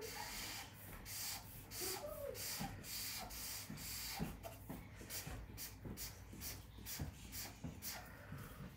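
Felt-tip marker rubbing back and forth on paper while colouring in an area: a run of short scratchy strokes, a few a second.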